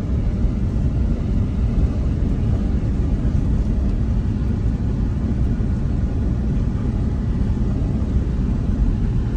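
Steady low rumble of a car driving along, heard from inside the cabin: road and tyre noise with the engine underneath.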